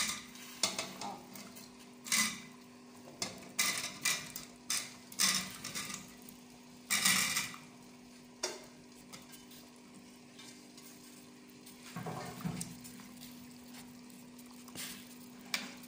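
Taro cubes being dropped and tipped from a metal bowl into a steel pot of green vegetable broth, with clinks and knocks of the bowl and a metal ladle against the pot, then stirring. The knocks come thick in the first half and thin out later, over a steady low hum.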